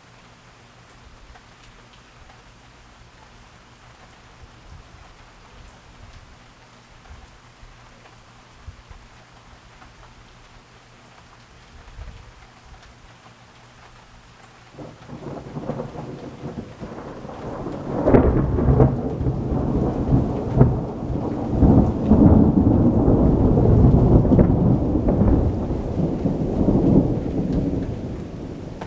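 Rain falling steadily, then about halfway through a long peal of thunder rumbles in. It crackles and peaks for several seconds before rolling away near the end.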